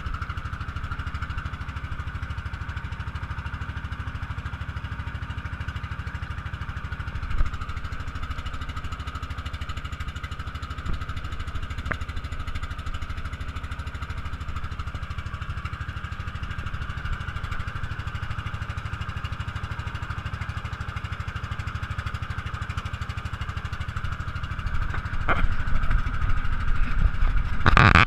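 Outrigger motorboat's engine running steadily under way at a slow cruise, a fast even pulse with a steady hum above it, getting louder near the end.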